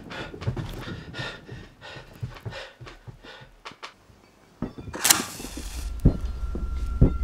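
Heavy panting breaths in the dark. About five seconds in, a short harsh hiss as a flame is struck. A low drone then sets in, with deep thuds about a second apart.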